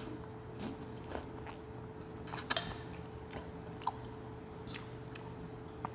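Eating at the table: chewing and mouth sounds, with scattered light clicks of spoons and chopsticks against ceramic bowls, the sharpest pair about two and a half seconds in.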